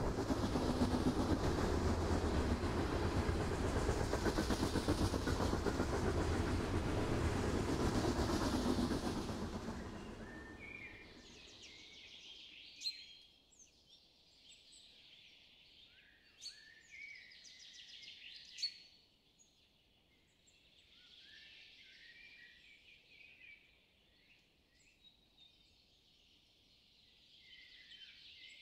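A loud, low rumbling roar that fades away about ten seconds in, leaving birds chirping and calling over a quiet background, with a few sharp snaps in the middle.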